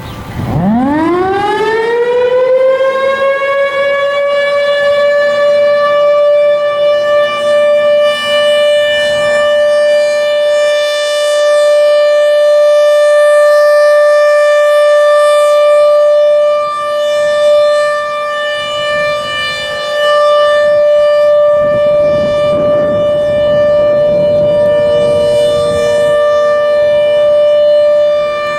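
Federal Signal Thunderbolt 1000 outdoor warning siren sounding its single tone: it winds up over about three seconds to a steady high pitch and holds it. This is its routine short-alert test.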